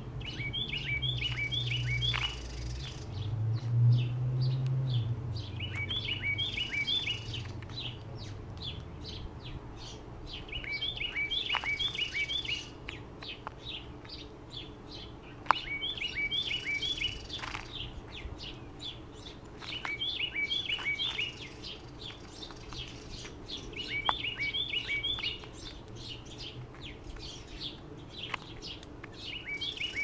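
A songbird sings the same short phrase of quick repeated notes over and over, about every four to five seconds. Short sharp chirps fall between the songs.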